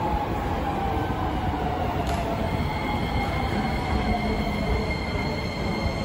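Chiba New Town Railway 9200-series electric train coming into an underground station through the tunnel: a steady low rumble with a tone that slowly falls in pitch as it slows. About two seconds in, high steady squealing tones join in.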